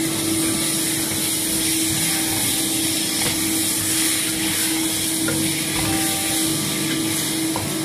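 Kitchen extractor fan running with a steady whirring hum, with a few faint knocks as a wooden spoon stirs a stainless steel pot.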